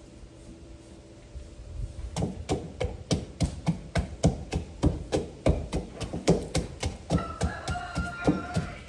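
Wooden pestle pounding garlic in a wooden mortar, a steady run of knocks at about three a second that starts about two seconds in.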